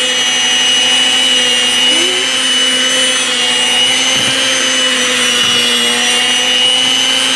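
Proctor Silex electric hand mixer running at a steady speed, its beaters churning thick cake batter, with an even motor whine.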